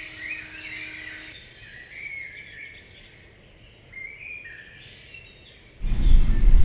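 Birds chirping faintly, short rising and falling calls, over a light background hiss. Near the end a loud low rumble suddenly comes in.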